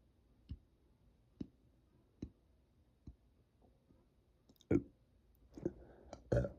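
Sharp clicks and gulps from the throat, about one a second at first, then louder and closer together near the end: air being swallowed ahead of a burp.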